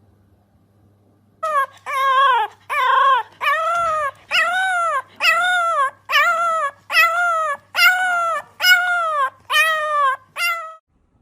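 A dog giving a quick series of about eleven short, high howling calls, each rising and falling in pitch, beginning about a second and a half in.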